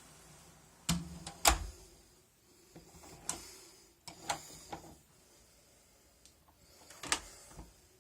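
Several sharp clicks and knocks of a door lock and door being handled, the loudest about one and a half seconds in, with others spread irregularly through the rest.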